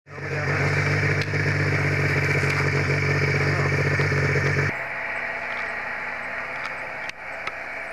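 Snowmobile engine running steadily. A little under five seconds in it drops away suddenly, leaving a quieter, lower hum with a few sharp clicks.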